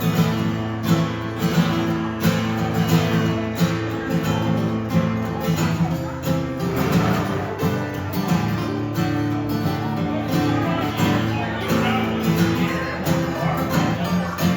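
Live country-folk music in an instrumental break between sung verses: guitar strummed in a steady rhythm, with sustained notes underneath.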